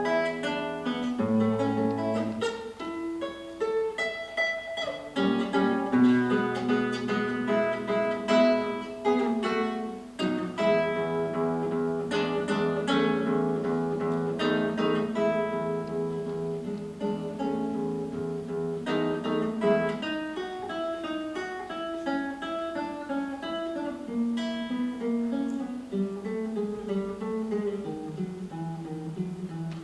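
A solo plucked string instrument playing a piece of music, with melody notes and chords over held bass notes.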